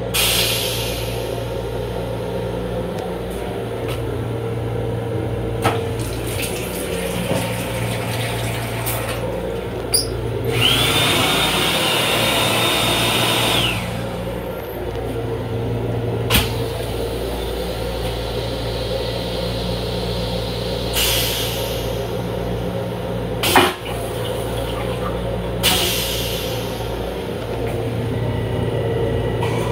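Steady hum of a Long Island Rail Road M7 electric railcar, heard inside its small restroom, with a few sharp clicks and knocks. About ten seconds in, a rush of water runs for about three seconds and cuts off.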